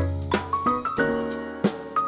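Background music led by a keyboard, with struck notes and a short run of rising notes about half a second in.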